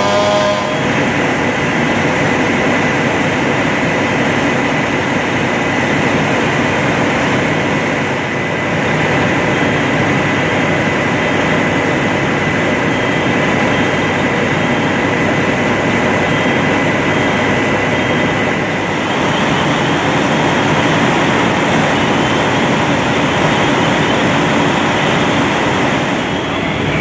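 Engine-driven equipment running loud and steady, with a thin high whine that stops about two-thirds of the way through.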